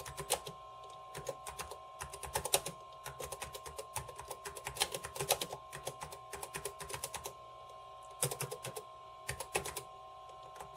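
Typing on the keyboard of a 1989 Zenith Data Systems SupersPORT laptop: quick runs of key clicks for about seven seconds, then a short pause and two brief flurries of keystrokes near the end.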